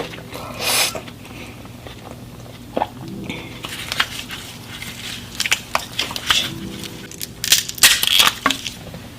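Seafood boil being bitten into and chewed close to the microphone: irregular bursts of crunching and crackling, thickest in the second half, over a faint low hum.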